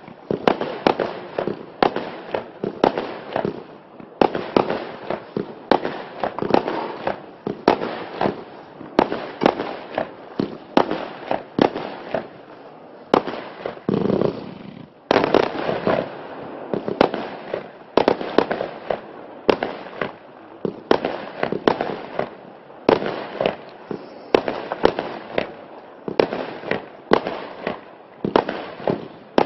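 Klasek 'Fireworks show 536' F3 compound fireworks cake firing its shots in quick succession, about two sharp bangs a second, with a short lull about fifteen seconds in.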